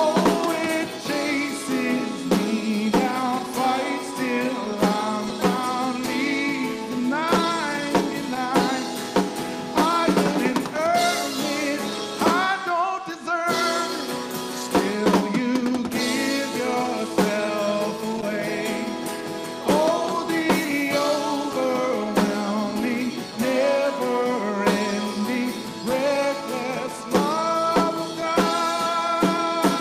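Live worship band performing a contemporary worship song: male and female voices singing over strummed acoustic guitar and drums.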